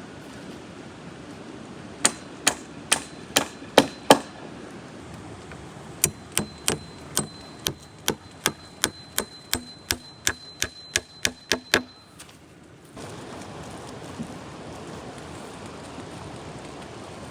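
A hammer driving nails: six strikes about two seconds in, then a quicker run of about sixteen strikes with a faint ringing of metal, over a steady background hiss.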